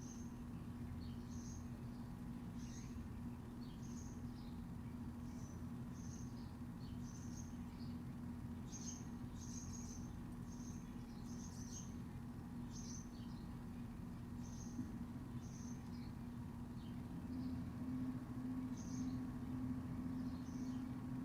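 Small birds chirping: short, high, falling notes at an irregular pace of about one a second, over a steady low hum that grows a little louder near the end.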